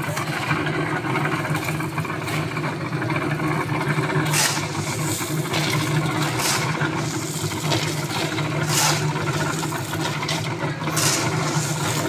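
Portable concrete mixer running steadily with its drum turning, while shovelfuls of sand and gravel are scraped up and thrown in, a scrape and rattle every second or two.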